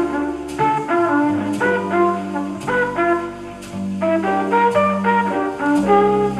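Small-group jazz from a vinyl record played through restored Lowther PM7A full-range speakers and picked up about ten feet away: a horn melody over sustained bass notes, with cymbal or drum strokes.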